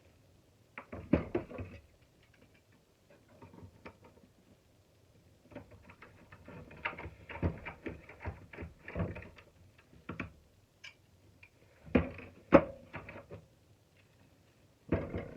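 Scattered clicks, taps and light clatter of hand tools and small metal and plastic parts as a shop vacuum motor is taken apart. The clatter is busiest from about five to ten seconds in, and the two sharpest knocks come near twelve seconds.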